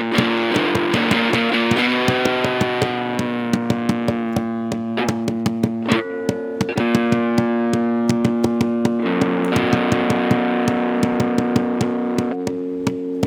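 Guitar playing held chords that change every few seconds, over a steady beat of hands banging on a tabletop as makeshift drums.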